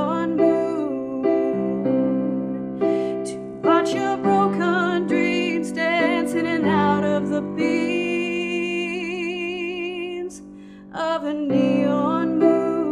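A woman singing a slow ballad over sustained keyboard chords, holding long notes with a wide vibrato. The music drops away briefly about ten seconds in, then comes back.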